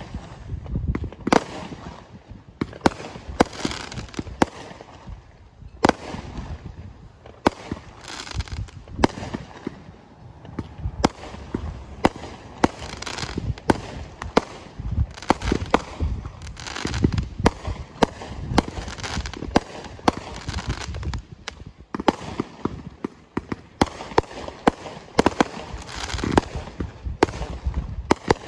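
Firework cakes firing in a continuous string: sharp launch bangs and aerial bursts at irregular intervals, sometimes several a second, with a noisy hiss and crackle between them.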